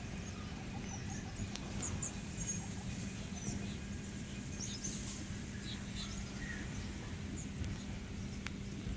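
Small birds chirping in short, scattered high calls over a steady low hum and a continuous low rumble.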